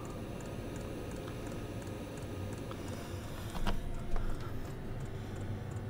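Diesel air heater running hot: a steady fan-and-burner rush with the fuel pump ticking at a regular rate, its faster pace once the diesel is burning. A brief rustle of handling comes about two-thirds of the way through.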